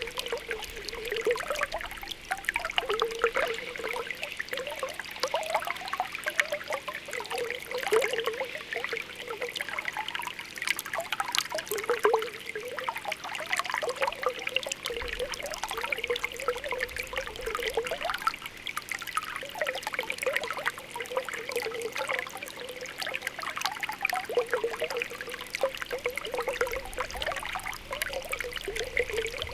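Spring water welling up from the ground, bubbling with a constant irregular run of small popping bubbles over a steady trickle.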